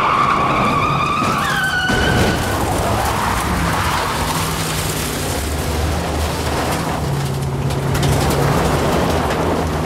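High-speed car chase: car engines running hard, with tires squealing for the first two seconds and the pitch rising before it stops. Then a steady rush of engine and road noise as a car runs off the road into a dirt field.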